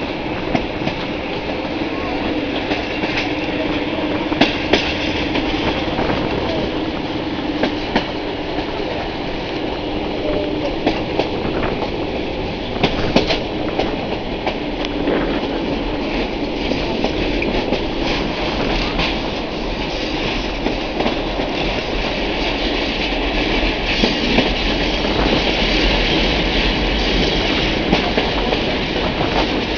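Passenger train running along the track, heard from an open carriage window: a steady rush of wheel and wind noise with scattered sharp clicks as the wheels cross rail joints. A low rumble grows stronger in the second half.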